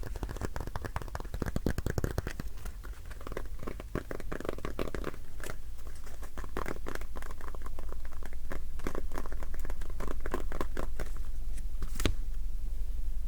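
Close-miked crinkling and scratching of an object handled in the hands, a dense run of small irregular crackles, with one sharper click about twelve seconds in.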